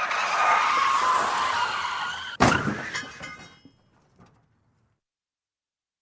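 Car crash: tyres screech in a skid for about two and a half seconds, then a loud impact, followed by breaking glass and clattering debris that die away within a couple of seconds.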